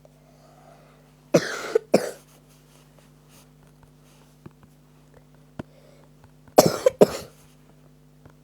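A person with a bad cough coughing in two short bouts about five seconds apart, each of two or three coughs.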